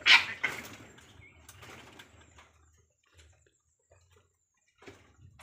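Mother Asian palm civet moving about her kits in a wooden nest box: a sudden loud, noisy burst right at the start, a second half a second later, then a few fainter scuffles.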